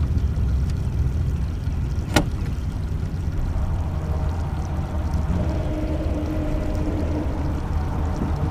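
Water sloshing against the side of a boat as a large catfish is held in the river and released, over a steady low rumble. One sharp knock about two seconds in, and a faint steady hum through the middle.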